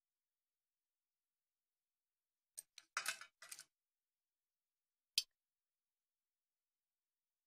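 A few short clicks and a brief scrape about two and a half seconds in, then one sharp click a couple of seconds later: small hard objects knocking and sliding against each other.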